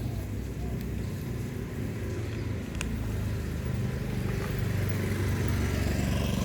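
Low, steady rumble of a motor vehicle's engine running close by, growing gradually louder.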